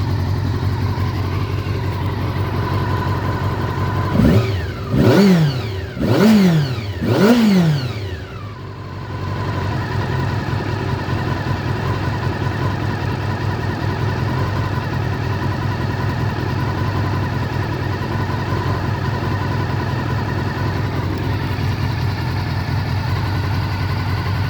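Honda CBR400RR NC23's inline-four engine idling steadily just after a carburettor rebuild, blipped three times in quick succession about four to eight seconds in, each rev rising and falling sharply. After the last blip the idle sags briefly, then settles back to a steady idle.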